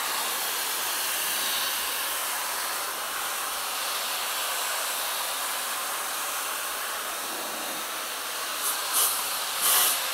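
Jellyfish handheld pet dryer running steadily, its airflow making a constant hiss as it blows water out of a wet dog's coat. Near the end come a few brief, louder hisses.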